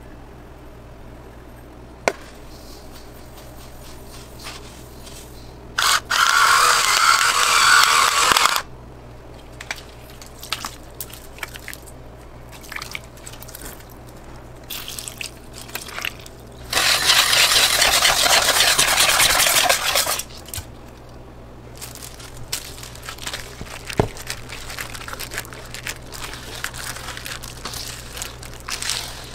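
Mayonnaise and a thin liquid being poured into a plastic tub, with small drips, clicks and scrapes against the tub. Two loud, even hissing stretches of about three seconds each come in, about six seconds in and again about seventeen seconds in.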